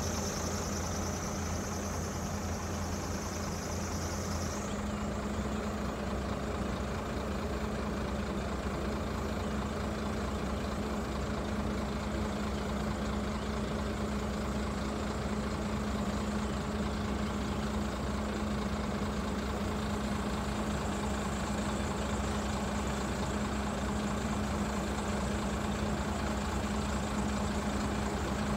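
Heavy diesel engines of an excavator and dump truck running steadily at idle, a low even hum with no rock impacts. A high whine stops and the engine note drops slightly about four and a half seconds in.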